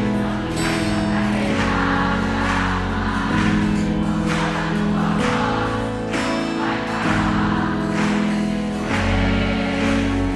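Worship song played by a band, with long held chords and a steady bass, and voices singing along.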